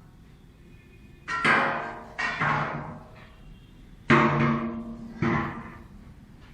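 Music with deep drum strikes: four heavy hits that ring out and fade, in two pairs about a second apart.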